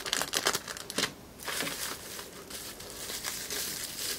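Clear plastic packaging crinkling and rustling as it is handled. Sharp crackles come in the first second, then after a short lull the rustling is softer.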